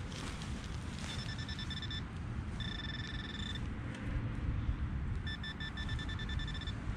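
Handheld metal-detecting pinpointer probing a dug soil plug, giving a series of rapid high electronic beeps, then a steady tone, then rapid beeps again as it closes on a buried metal target. Low wind rumble sits underneath.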